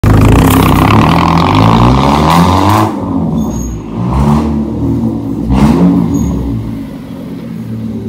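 Loud straight-piped exhaust of a Hyundai i20 hatchback revving three times, the engine note climbing and dropping each time. The first rev is the longest and loudest.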